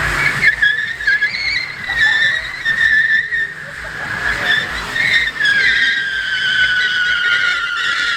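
Car tyres squealing in a long, wavering screech as they spin and skid on the tarmac, sinking slightly in pitch over the second half.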